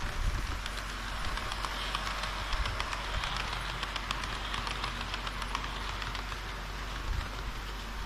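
HO-gauge model train of red diesel railcars rolling past, its metal wheels running on the track with a constant rapid clicking over the rail joints. The sound builds as the cars pass close and thins out near the end.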